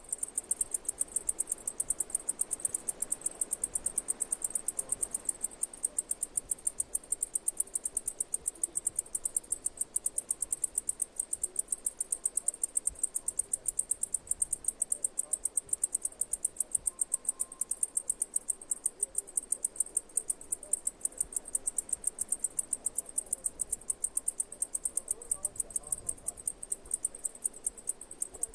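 An insect chirping in a fast, even rhythm of short, high-pitched pulses, keeping up without a break.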